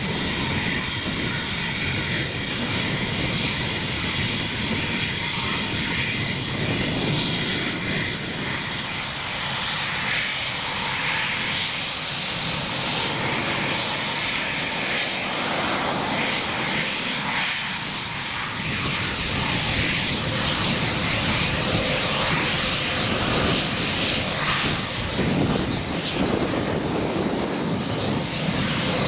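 Eurofighter Typhoon's twin EJ200 jet engines running: a steady high whine over a wide, even rush of noise, with more hiss from about eight seconds in.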